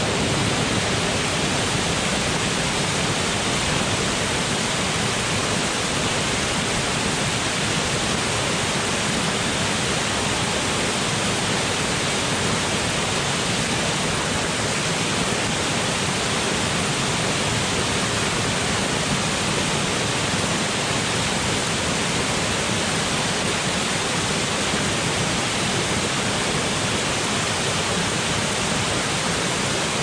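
Waterfall cascading down a rock face into a pool, a steady, unbroken rush of falling water.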